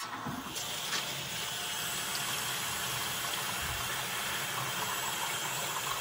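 Water rushing out of a water heater's temperature and pressure relief valve, down its discharge pipe into a plastic bucket, with the valve's lever held open for a test release. It starts abruptly as the valve opens and then runs steadily.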